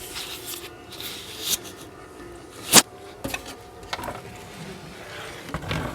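Packaging and parts being handled: rustling with a sharp knock about halfway through and a few lighter clicks.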